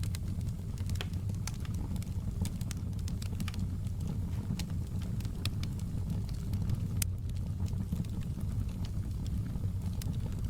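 Wood fire in a fireplace burning with a steady low rumble, and irregular sharp crackles and pops from the burning wood scattered throughout.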